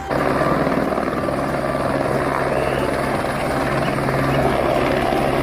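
Light single-engine helicopter hovering, its rotor and turbine making a loud, steady drone with a constant low hum.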